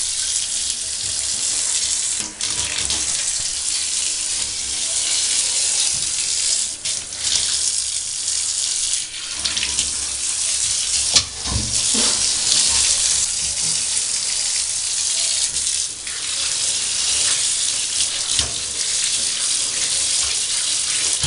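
Water running steadily into a bathtub, an even hiss. A brief thump about eleven seconds in.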